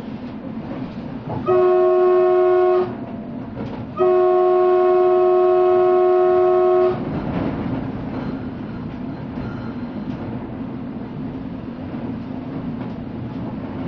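Train horn sounding two blasts of several tones at once, a short one and then a longer one of about three seconds, over the steady running rumble of the train on the line.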